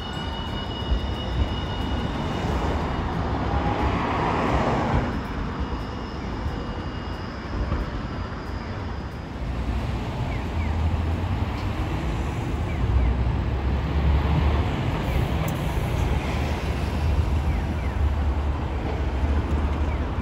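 Street sound at a tram stop: a Hiroden Green Mover LEX low-floor tram with a swell of noise between about two and five seconds in, then a steady low rumble of road traffic.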